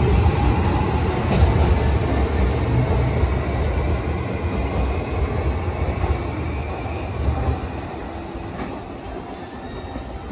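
JR Shikoku 7200 series electric train pulling out and accelerating away, its motors and wheels rumbling with a faint rising whine over the rails. The rumble dies away about three-quarters of the way through as the last car leaves.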